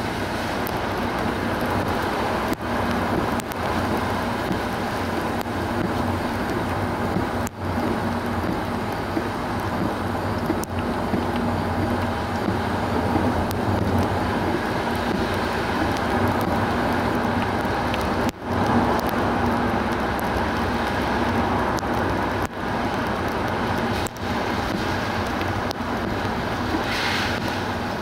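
Steady road and tyre noise of a car driving on a mountain road, with a low steady engine hum underneath. The level drops for an instant several times.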